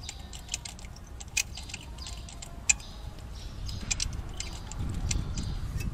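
Ratcheting wrench clicking in short, irregular runs as a bolt is tightened, with a few louder metal ticks. A low rustle of hands and tool against the engine bay comes in near the end.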